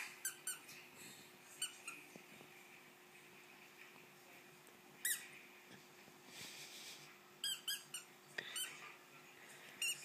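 A squeaky dog toy squeaking in short, separate squeaks, played back through a phone's small speaker. A few single squeaks come first, then a quick run of three about seven and a half seconds in, with a couple more near the end.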